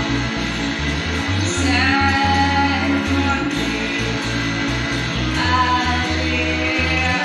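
Music: a song with singing over guitar.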